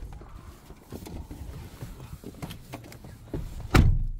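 Scattered knocks and rustling, with a loud sharp thump a little before the end.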